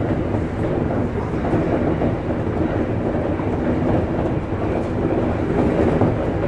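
JR East Shonan-Shinjuku Line electric train running along the track, heard from inside the driver's cab as a steady rumble of wheels on rail.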